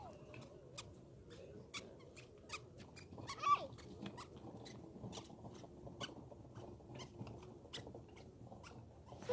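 Faint short sharp clicks, irregular, about one to two a second, over a low steady background, with a brief high squeal from a small child about three and a half seconds in.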